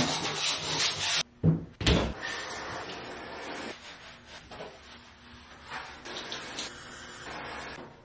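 Scrubbing inside a shower stall with a brush and sponge: a rasping rub, broken about a second and a half in by two sharp knocks, then softer wiping strokes.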